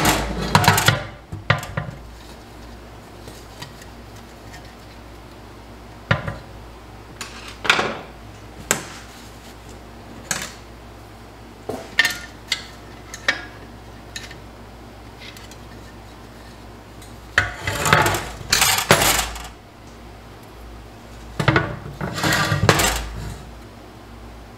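Metal clinks and knocks of hand tools and loose internal parts against a TH350 transmission case while a stuck part is worked out of it by hand. The knocks are scattered single clinks, with two bursts of rattling about two thirds of the way through and again near the end.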